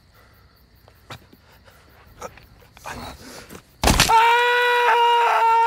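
Faint scattered rustles and clicks, then about four seconds in a sudden loud scream held long on one high pitch.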